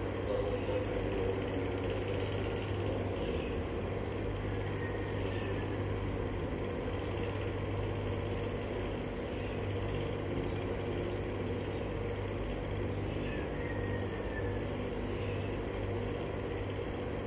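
Steady low mechanical hum over an even background noise, with no speech.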